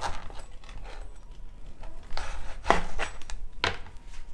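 Several sharp knocks and scrapes of a large, broad-bladed kitchen knife working at a singed pork leg's hoof on a plastic chopping board, as the hoof is pried off.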